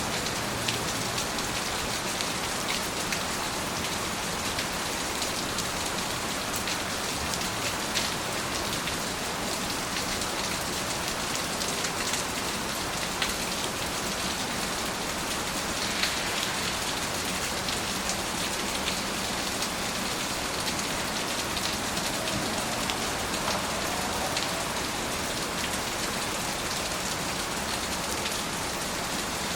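Steady rain falling, an even hiss scattered with many small pattering drop ticks.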